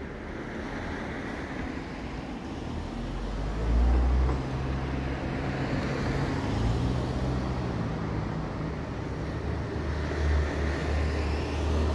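Road traffic: a motor vehicle's engine running close by, its low hum stepping in pitch. It grows louder about four seconds in and again near the end.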